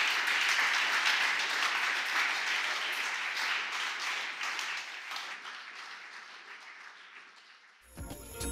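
Audience applause, fading gradually away; music starts just before the end.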